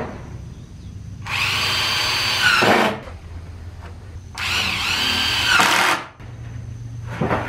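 Cordless drill driving screws into wooden boards: two runs of about a second and a half each, the motor's pitch dropping near the end of each run.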